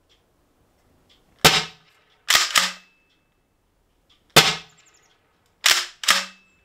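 Stock 7.5-joule Umarex HDX 68 CO2 gun being fired over a chronograph: six sharp pops, singly and in close pairs, some followed by a short low ring.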